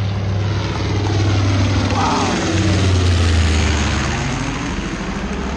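Vintage piston-engine warplanes flying low overhead, with a deep propeller drone that drops in pitch about halfway through as they pass.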